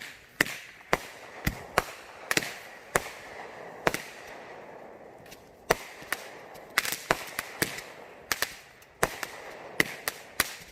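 Firecrackers going off in an irregular series of sharp pops, about two a second at first, with a quick rattling cluster about seven seconds in.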